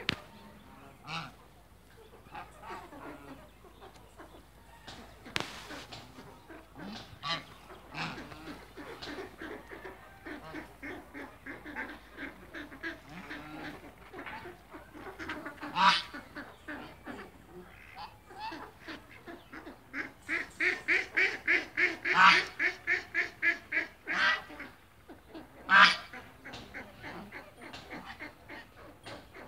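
A flock of domestic geese honking. The calls come on and off, then run together into a fast string of honks, about three or four a second, for several seconds past the middle. A few single honks stand out louder than the rest.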